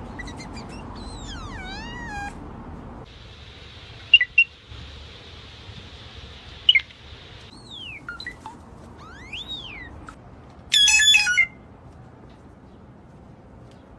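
Blue jay calls: scattered whistled and squeaky notes, some gliding down in pitch and some rising and falling, with a short, louder call about eleven seconds in.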